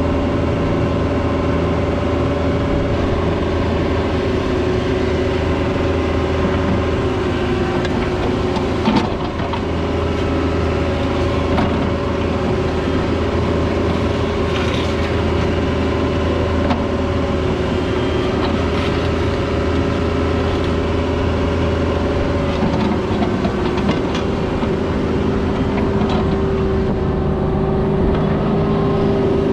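A Cat 304 mini excavator's diesel engine running steadily under working load, with a single knock about nine seconds in.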